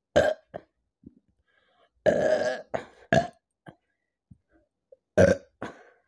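A woman burping repeatedly after drinking carbonated soda: a run of short, loud burps with a longer drawn-out one about two seconds in.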